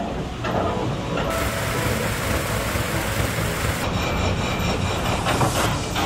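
Water-powered up-and-down sash saw running in a wooden mill, the saw and its wooden works clattering steadily as it cuts through a log, with a few sharp knocks near the end.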